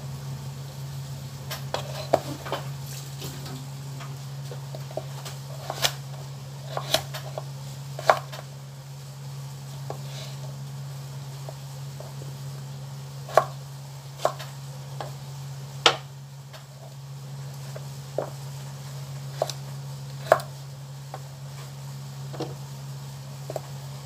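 Kitchen knife slicing carrot and chayote on a cutting board, in scattered, irregular knocks a second or more apart, over a steady low hum.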